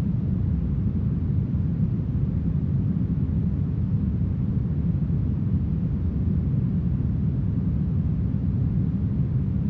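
Smoothed brown noise: a steady, deep rushing noise with most of its weight in the bass and little treble.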